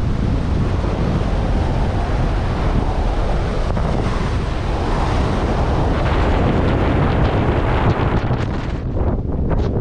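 Strong wind buffeting the microphone: a steady, loud rumbling hiss that thins out near the end.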